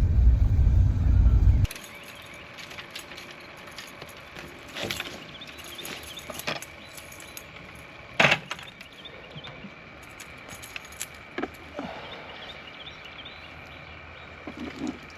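Low vehicle road rumble that cuts off suddenly about a second and a half in. It is followed by scattered light clinks and knocks of small hard objects being handled over a faint steady background, with the sharpest knock near the middle.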